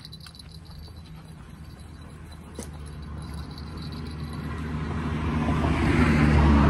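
A motor vehicle on the road approaching and passing, its engine and tyre noise growing steadily louder and peaking near the end.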